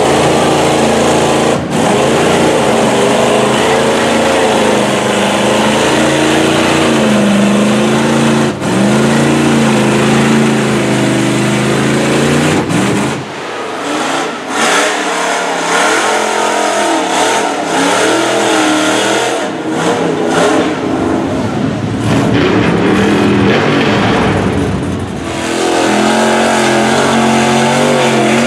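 Lifted mud trucks on big tractor-tread tyres revving hard as they plow through water and mud, the engine pitch climbing and falling with the throttle. The first is a Chevrolet Silverado close by. After about 13 seconds a more distant truck takes over, heard as a rougher, noisier roar, and near the end a close truck revs hard again.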